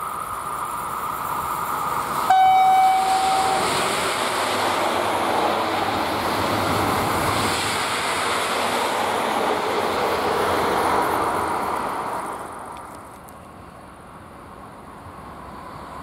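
Electric-hauled regional passenger train passing close by. It gives one horn blast a little over two seconds in, lasting just over a second, then the locomotive and coaches rush past, and the sound dies away after about twelve seconds.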